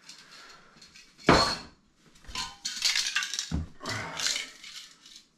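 Metal aerosol spray paint cans clinking and knocking against each other as they are handled and lifted out of a cardboard box. There is one loud knock just after a second in, then a run of clinks and rattles.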